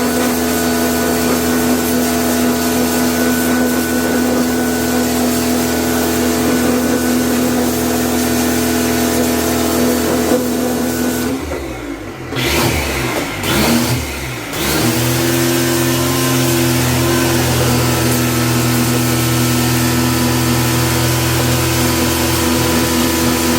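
A motor-driven machine running with a steady hum. About halfway through it falters for a few seconds, its pitch gliding and wavering, then it settles back into a steady run at a slightly different pitch.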